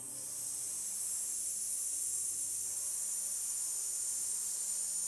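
A person exhaling a long, steady 'sss' hiss: the Chi Kung healing sound 'S' for the lungs, voiced on the out-breath.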